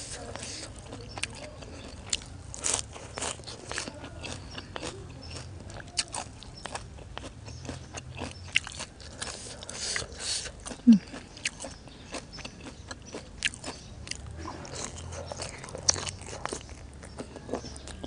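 Close-miked chewing and crunching of fresh raw herbs and spicy seafood salad: irregular crisp bites and wet mouth sounds, with a brief hum about eleven seconds in.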